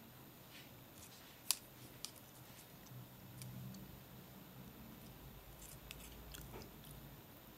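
Faint ticks and rustles of fishing line being wrapped and pulled tight by hand in half hitches, with one sharp click about one and a half seconds in.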